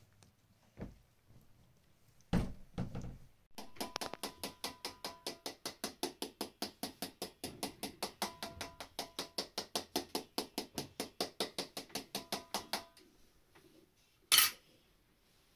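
A kitchen utensil knocking rapidly and evenly against a dish or board, about five strokes a second for some nine seconds, with a slight ring to each stroke. A dull thump comes a couple of seconds in, and a short scrape comes near the end.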